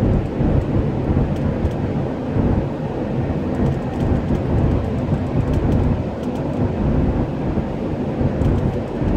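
Steady low rumble of tyre and wind noise inside a car cabin driving at highway speed.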